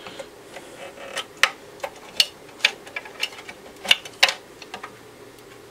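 Irregular light clicks and snaps of plastic wire connectors being worked loose and unplugged from a circuit board, about a dozen over a few seconds, over a faint steady hum.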